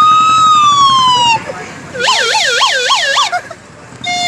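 A man imitating an Indian '108' ambulance siren with his mouth. First comes one long wail that rises and then falls away. After a brief pause comes a fast warbling yelp, about four swings a second.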